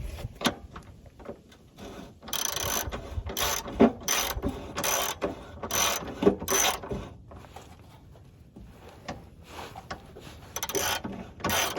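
Hand socket ratchet clicking in repeated short bursts, one burst per back-swing, as a subframe bolt is backed out, with a pause of a couple of seconds partway through.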